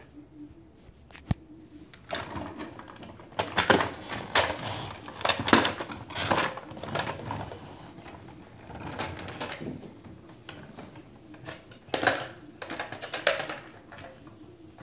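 Plastic toy fire truck with a push-to-launch mechanism being handled and pushed across a counter: a click, then irregular short bursts of plastic clatter, clicking and wheel rattle.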